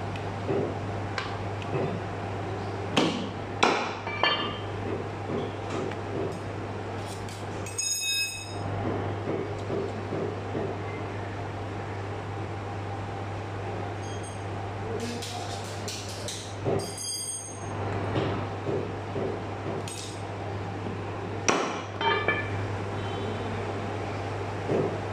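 Butcher's knife cutting a mutton leg on a wooden chopping block: scattered sharp knocks of the blade and meat on the block, with two ringing metallic clinks about a third and two thirds of the way through. A steady low hum runs underneath.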